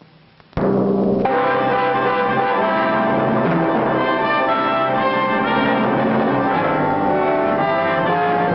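Orchestral music with brass and timpani starting suddenly about half a second in, full and sustained with bell-like ringing notes.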